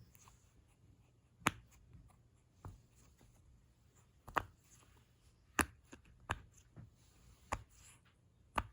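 A fidget toy being played with by hand, giving about eight sharp clicks or snaps at irregular intervals.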